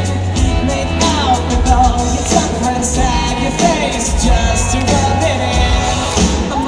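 Live pop-rock band performance: a male lead vocal singing over drums, cymbals and heavy, booming bass.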